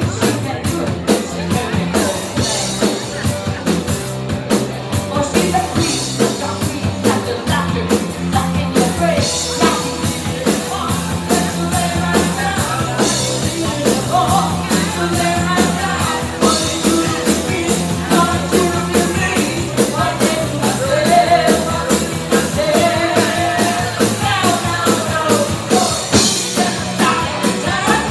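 A live rock band playing: a woman singing lead over electric guitar, bass guitar and a steady drum-kit beat.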